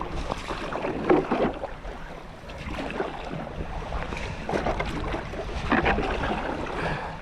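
Kayak paddle strokes splashing in the water, a few uneven splashes, over wind noise on the microphone.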